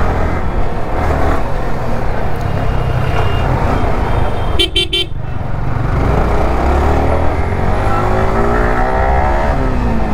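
Motorcycle engine running in traffic, with a quick burst of horn beeps about halfway through. Over the last three seconds the engine's pitch climbs steadily as it speeds up.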